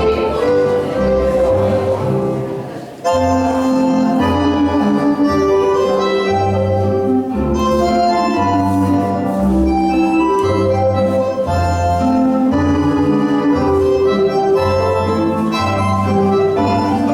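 Ballroom dance music for a padegras, with an organ-like keyboard melody of held notes over an evenly pulsing bass. About three seconds in the music briefly fades, then comes straight back in at full level.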